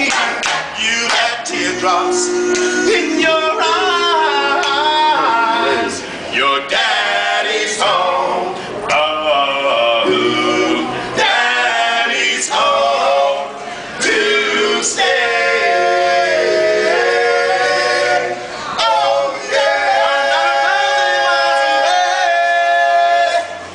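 A group of men singing a cappella in harmony, several voices at once with no instruments, holding long notes in the later part.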